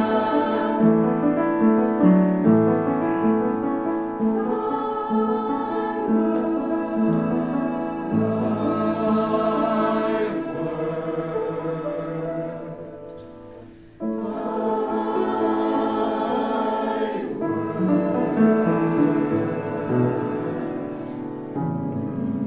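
Choir singing a hymn in sustained chords. The sound fades a little past halfway, then a new phrase comes in suddenly.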